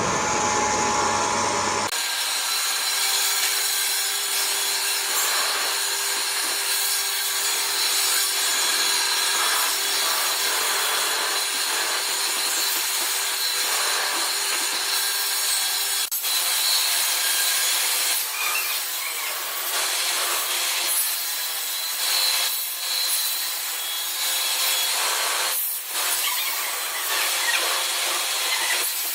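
A sawmill's saw cutting through timber, a steady hissing rasp with a faint high whine, starting abruptly about two seconds in and running on with a few brief dips.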